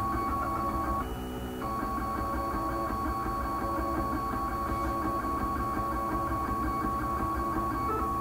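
Stepper motors of a homemade wooden-frame 3D printer whining in steady tones as the print head traces a filament outline. The pitch changes briefly about a second in, and a fast, light ticking runs underneath.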